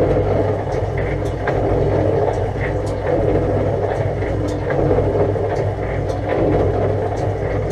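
1947 MacEntee bore pump running steadily with a constant low hum, freshly fitted with a new return valve and top washer. Scattered light clicks sound over it.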